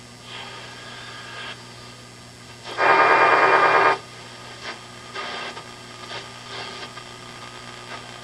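Heathkit AR-3 receiver being tuned by hand: hiss and static through its speaker with faint fragments of signals sliding past, and a loud burst of a signal about three seconds in that lasts about a second.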